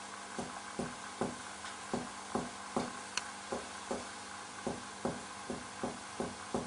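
Finger-on-finger chest percussion: a steady series of short, dull taps, about two and a half a second, struck down the right midclavicular line to find where the lung note turns dulled over the liver, which marks the height of the diaphragm.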